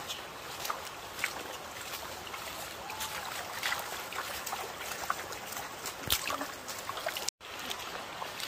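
Shallow river water running over stones, with many small splashes from people wading through it. The sound cuts out for an instant about seven seconds in.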